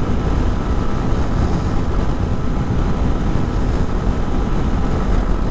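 Honda Hornet 160R's single-cylinder engine running steadily at highway cruising speed, mixed with the steady rush of wind and road noise on the action-camera mic.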